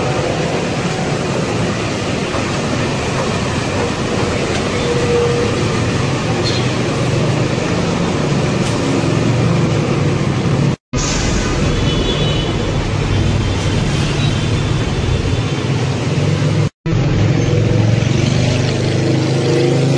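Steady rumble of motor traffic, broken twice by a brief silent gap.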